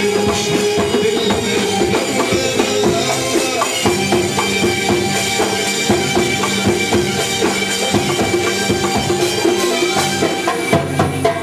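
Live Egyptian belly-dance music played by a band: a held melody line over quick, busy hand-percussion strokes, at a steady loud level.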